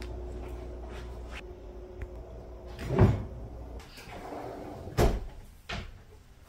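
Kitchen cabinet drawer pulled open: a short slide on its runners, then a sharp knock about five seconds in and a smaller one just after. A duller thump comes about three seconds in.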